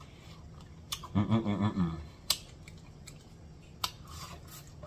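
Close-miked eating sounds: sharp wet mouth clicks and smacks, a short hummed "mmm" of enjoyment about a second in, and a bite into corn on the cob near the end.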